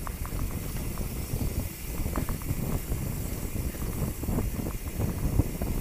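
Mountain bike riding down a rocky dirt trail: tyres rolling over loose stones, with frequent rattling clicks and knocks from the bike over a steady low rumble.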